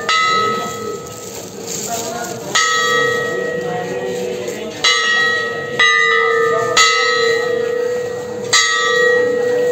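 A hanging temple bell struck by hand six times at uneven intervals, each stroke ringing on into the next, over a steady hum of lingering tone.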